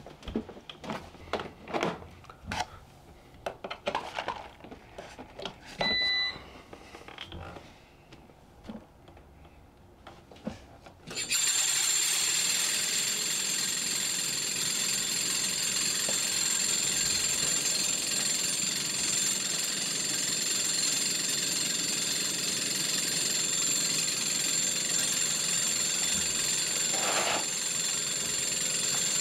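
Handling clicks and knocks on a repaired cooking appliance and a short electronic beep about six seconds in. About eleven seconds in, the appliance's fan starts abruptly and runs steadily with a constant whine and whoosh. The owner thinks the fan is not tight enough on its shaft.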